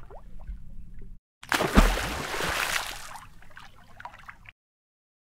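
Water splash sound effect with a low thud about two seconds in, followed by watery bubbling and trickling that fades out over a couple of seconds.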